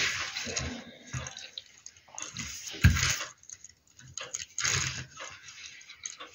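Handling noise from a small die-cast model car being pushed about on a glossy paper sheet: irregular scraping and rustling, with one loud knock about three seconds in.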